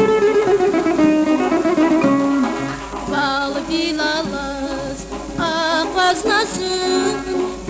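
A Lezgin folk song with string instruments, plucked and bowed, playing a melody; a woman's voice comes in singing with vibrato about three seconds in.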